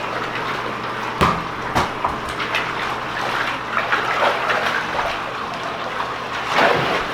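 Water running steadily into a full bathtub, with a few short splashes about one second in, again just under two seconds in, and near the end.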